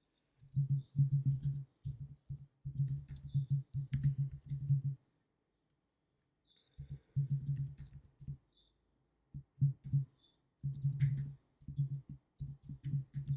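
Typing on a computer keyboard, quick runs of dull keystrokes, with a pause of nearly two seconds midway.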